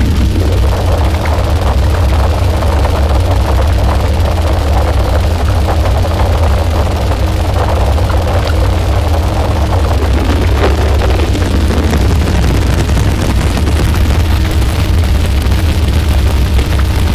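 Modular synthesizer drone music: a loud, steady deep drone with several held tones above it and a crackling, glitchy noise layer on top. About ten seconds in, a tone glides down in pitch.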